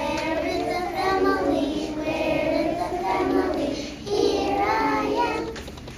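A group of preschool children singing a song together, in phrases with a short break for breath about four seconds in.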